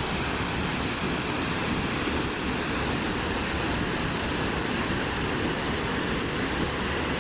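Waterfall running loud and steady: a constant rush of falling water.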